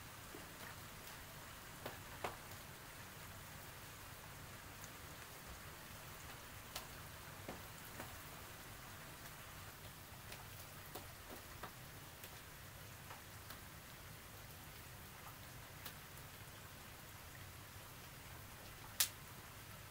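Light rain: a faint steady patter with irregular drops striking close by, one much louder drop near the end.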